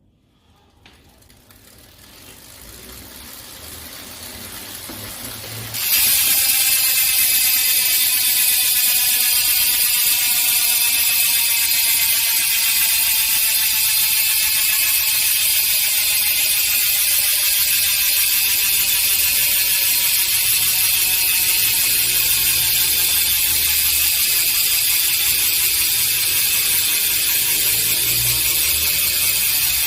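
OXO bicycle freehub buzzing as the wheel freewheels, its pawls clicking so fast that they blur into a buzz. The sound swells from faint, jumps loud about six seconds in, then holds steady while its pitch slowly falls.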